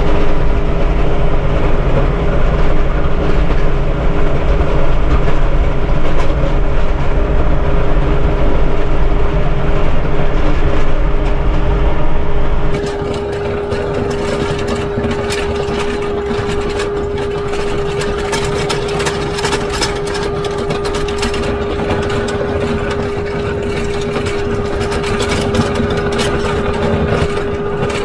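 Kubota MX5400 tractor's diesel engine running steadily with a constant tone, a heavy low rumble for the first half. About halfway in the rumble drops away and the rear blade is heard scraping snow and gravel as a dense crackle over the engine.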